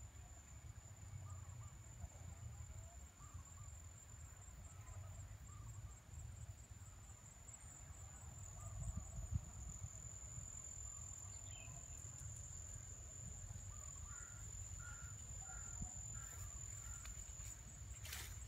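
Field ambience: a steady high-pitched insect trill, with faint scattered bird calls and a low rumble on the microphone. A few sharp clicks come near the end.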